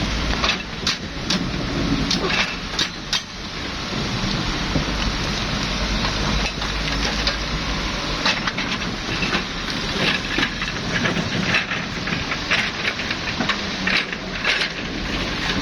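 Excavator at work: its engine running under a steady noisy rumble, with frequent irregular crunches and clatters of rock and earth.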